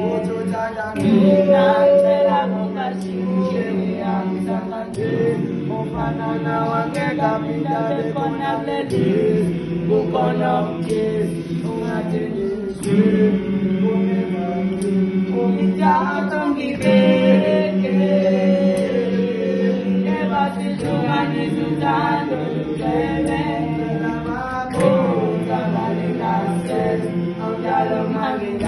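A group of young male voices singing a cappella in harmony: a low held chord under a moving upper line, the chord shifting about every four seconds.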